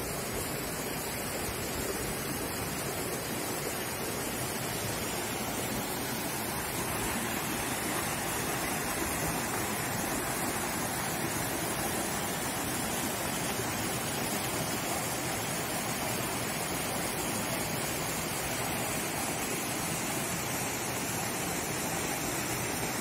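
Rocky mountain stream rushing over boulders: a steady, even rush of water with no break.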